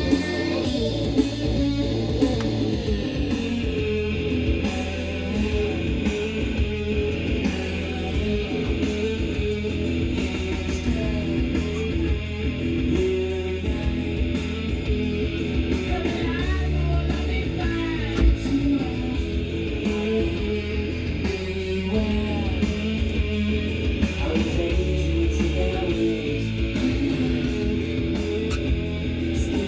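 Guitar music playing from a vinyl record on a Sony PS-LX300H belt-drive turntable.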